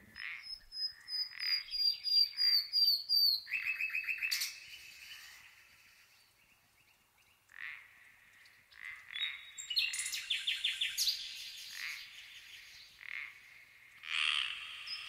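Recorded night-time birdsong and frog calls: repeated falling chirps and rapid trills. They die away to near quiet for a couple of seconds in the middle, then come back as denser trilling toward the end.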